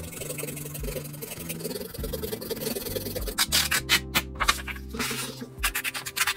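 A coloured pencil rubs back and forth across paper in a scratchy, even shading sound. About three seconds in, it gives way to a quick run of sharp, crisp strokes as scissors cut through the paper. Soft background music runs underneath.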